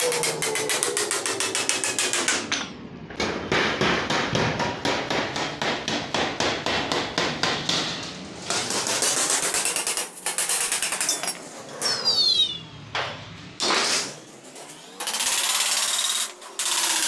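A wooden mallet hammering along a fold in a galvanized steel sheet, bending it over a steel edge: fast runs of sharp strikes with the sheet ringing and wobbling, broken by a few short pauses.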